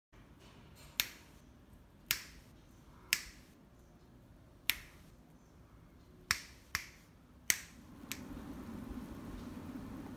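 About eight sharp clicks at uneven intervals, each with a brief ring, over faint background noise that grows a little louder near the end.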